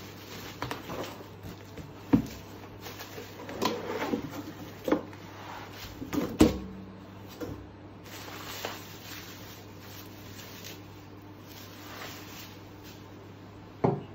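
Unpacking noises: a cardboard box and bubble wrap rustling and scraping on a wooden table, broken by several knocks. The loudest knock, about six seconds in, with a brief ring after it, is the heavy wrapped cast iron skillet being set down on the wood; another knock comes just before the end as the bare skillet is handled.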